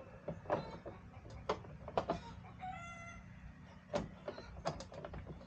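Scattered short clicks and knocks of plastic parts being handled and pressed together as a LED fender light housing is worked into the fender flare.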